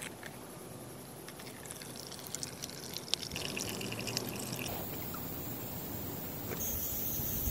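Watermelon juice pouring from a small metal tap into a plastic cup, a thin stream trickling in as the cup fills.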